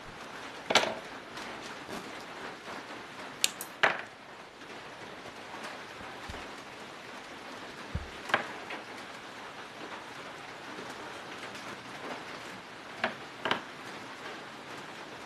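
Scattered sharp clicks and taps, about six of them, as pliers and copper magnet wire are handled at a small motor's stator, over a steady background hiss.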